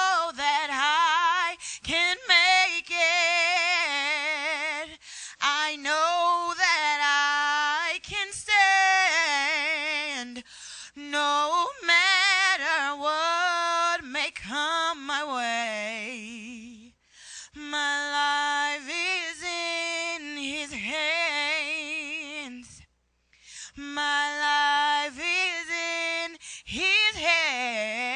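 A woman singing a gospel solo into a handheld microphone with no accompaniment heard, holding long notes with wide vibrato and bending through wordless melismatic runs. She breaks off twice for a moment, about two-thirds of the way through.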